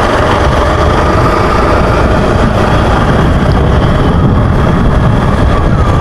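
Motorcycle engine running steadily while riding down a street, under a loud, even rush of wind noise on the microphone.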